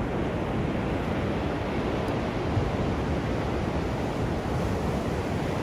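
Ocean surf breaking and washing on a sandy beach, a steady low rushing, with some wind on the microphone.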